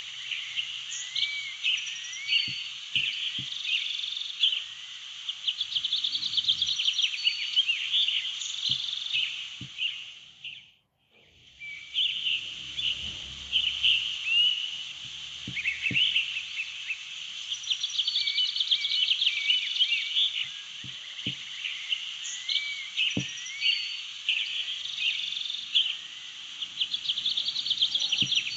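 Nature-sound background track: a dense chorus of small animal chirps, trills and short rising calls. It fades out and back in about eleven seconds in.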